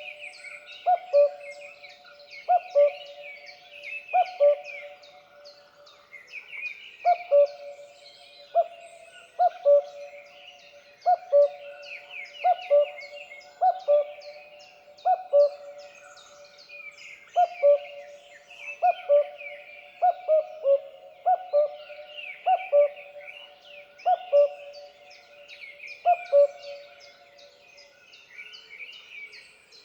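A cuckoo calling its two-note 'cuck-oo' over and over, about one pair every second and a half, with a short break in the first quarter and another near the end. Small birds chirp steadily in the background.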